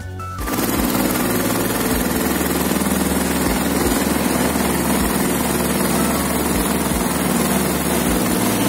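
Small petrol long-tail engine of a pirogue running steadily, heard loud and close from aboard the boat. It cuts in suddenly less than half a second in.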